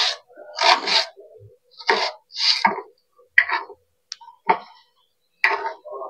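A knife cutting vegetables on a chopping board: about eight irregular short knocks and scrapes.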